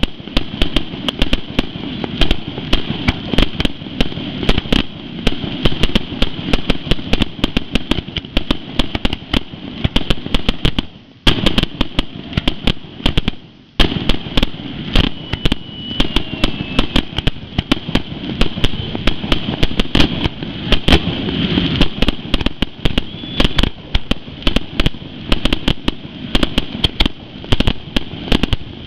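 Aerial fireworks display: a rapid, almost unbroken barrage of shells launching and bursting with loud bangs and crackle, with two brief lulls a little before the middle.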